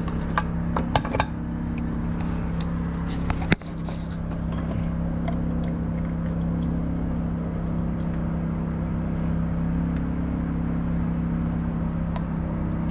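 Steady mechanical hum with a faint high whine, broken by a few sharp clicks and knocks in the first four seconds, the loudest about three and a half seconds in.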